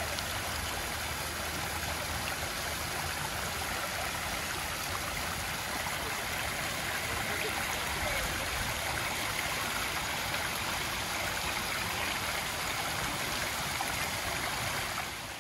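Water running steadily down a stepped granite cascade water feature, an even splashing flow.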